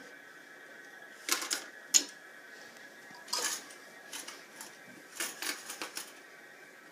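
Hard plastic toy cash register being handled: irregular clicks and short clattering knocks, some in quick clusters, over a faint steady hum.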